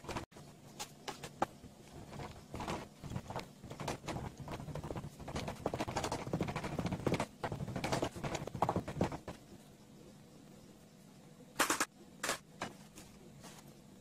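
Casting sand being packed and tamped by hand into a small wooden mould frame: many irregular knocks and scraping rustles, easing off after about nine seconds, then a few separate sharp knocks near the end.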